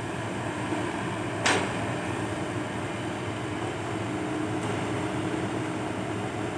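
Diesel engine of a Komatsu PC120-5 excavator running steadily as the machine swings its arm out over the sand pile. One short sharp click about a second and a half in.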